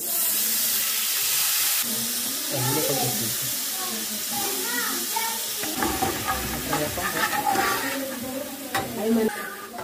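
White wine poured into a hot pan of oil and minced garlic, hitting with a loud sizzling hiss for the first couple of seconds, then settling to a quieter steady sizzle as it steams off.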